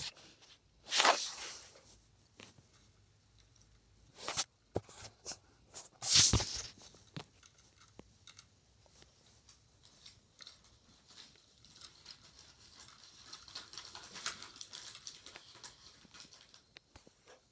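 Rustling and scraping handling noise with scattered clicks: three loud scrapes in the first half, then a lighter, continuous rustle.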